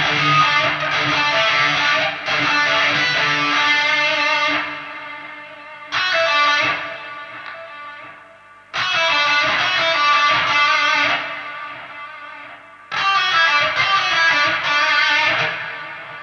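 Electric guitar played through a high-gain amp plugin: chords struck about a third of the way in, again near the middle and once more later, each left to ring and fade out. Between them the tail dies away cleanly with no mains hum, the signal cleaned by a hum extractor and a noise gate.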